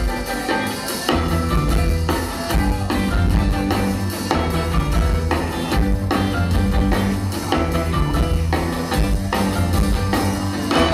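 Live band playing, a horn section of trombone, saxophones and trumpet over drums, bass and keyboards, with a steady beat.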